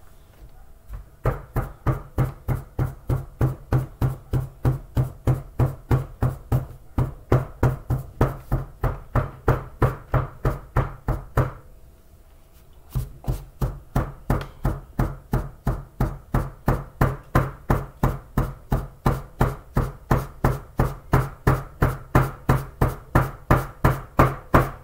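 Steady rhythmic thuds, about three a second, of a small carton of tapioca starch being knocked down on a tabletop to pack the powder tight before baking it into hard chunks. There are two long runs with a short pause of about a second in the middle.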